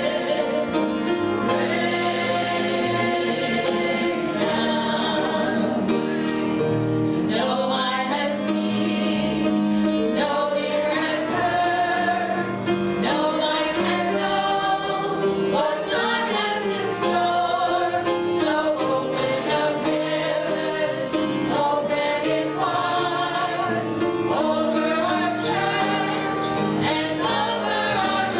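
A women's gospel vocal group singing together in harmony into handheld microphones, with long held notes.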